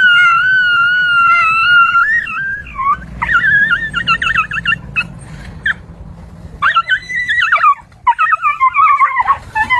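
A dog whining and yelping: a long, high, wavering whine that ends about two seconds in, then two spells of quick, high, broken cries with pauses between them, as the dog is frightened by a toy tiger pushed at it.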